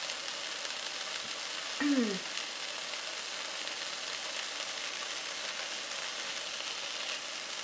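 Ahi tuna steaks sizzling as they sear in a nonstick frying pan: a steady hiss. A brief vocal sound falls in pitch about two seconds in.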